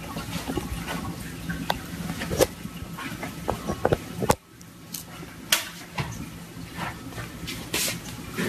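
Scattered light knocks and scrapes of a cardboard box moving on a stone tabletop as a cat shifts about with its head stuck inside it. The sound dips sharply for a moment a little past halfway.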